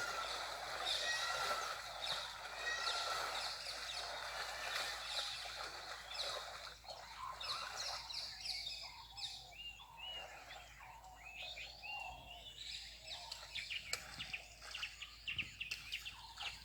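Several birds calling: at first a repeated short whistled call about every second and a half, then a dense mix of chirps and quick rising and falling notes.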